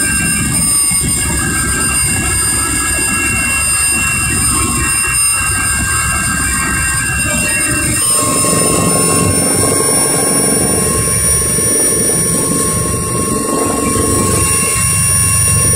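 Helicopter cabin noise on the landing approach: a steady drone of rotor and engine with several high, steady whines on top. The low rumble shifts about eight seconds in.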